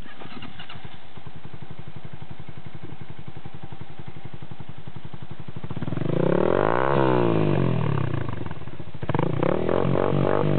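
Dafra Kansas 150 cc motorcycle with a loud aftermarket exhaust idling with an even, pulsing beat, then revved up and back down about six seconds in, followed by several quick throttle blips near the end.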